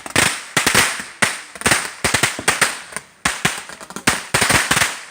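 Fireworks going off in a rapid, irregular string of sharp bangs and crackles, several a second, each with a short crackling hiss after it.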